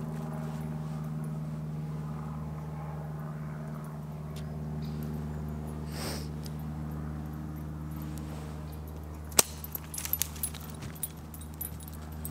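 Light aircraft's propeller engine droning steadily overhead, one even pitched hum. About nine seconds in there is a single sharp click, followed by a few lighter clicks and rattles.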